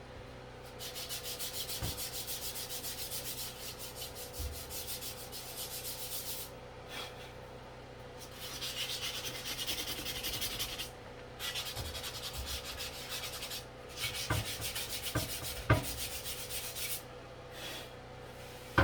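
220-grit sandpaper rubbed by hand over wood in quick back-and-forth strokes, in four runs with short pauses between, smoothing off burrs and ridges. A few light knocks come near the end.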